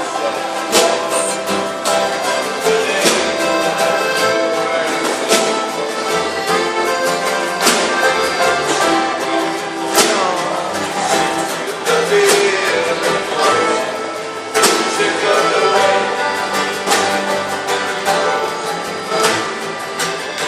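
Live folk band busking, playing a passage of a song with a steady rhythm under sustained melody lines, and no clear singing.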